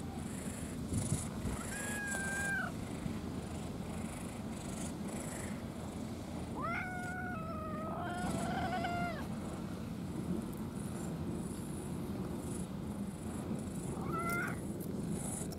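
Domestic cats meowing close up: one meow about two seconds in, two longer meows in a row midway, and a short one near the end.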